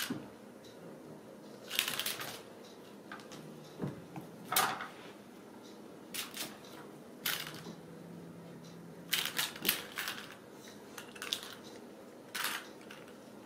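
Ragdoll kittens scrambling and pouncing after a wand toy: short, scattered scratchy rustles and taps of paws and claws on the rug and on a sisal scratching post, about nine in all.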